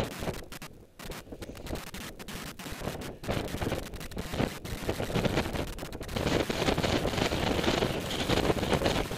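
Wind buffeting the camera's microphone, mixed with irregular scraping and rubbing from movement against the camera and gear. It gets louder about six seconds in.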